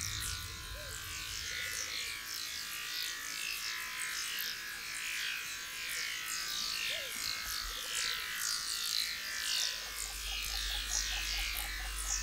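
Dense forest chorus of insects, full of high, falling chirps that repeat over and over, with a quick run of even ticks near the end.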